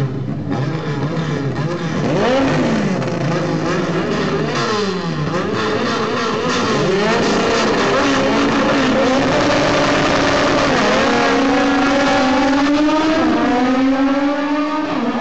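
Drag-race car engines revving at the starting line in quick rises and falls of pitch, then launching at full throttle down the strip. The note climbs steadily, drops back twice at upshifts, and climbs again.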